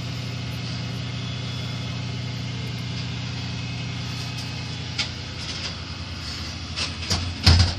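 Flatbed tow truck's diesel engine idling steadily, with a few light clicks about five seconds in and a thump near the end.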